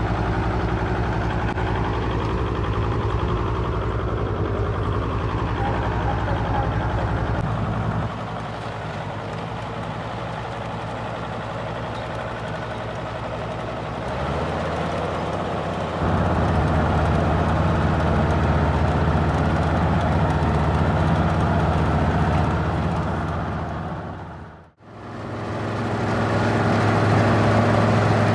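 Combine harvester engine running steadily, a constant low hum that changes in loudness and tone a few times between shots. It fades out briefly and comes back about three-quarters of the way through.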